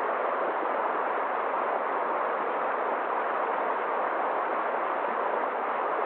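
Forest stream running fast over rocks in small cascades: a steady, even rush of water.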